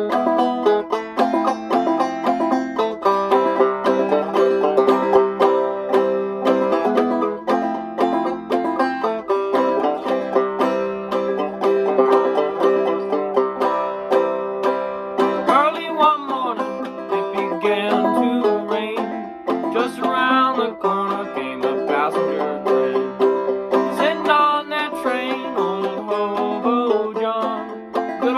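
Five-string banjo played clawhammer style: a steady run of plucked and brushed notes in an even rhythm, with the strings left ringing.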